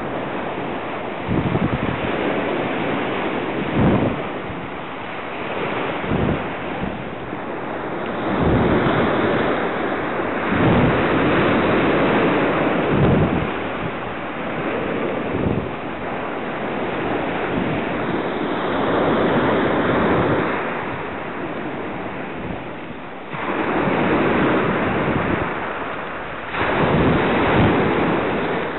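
Sea surf breaking and washing on the shore in repeated swells, with wind buffeting the microphone.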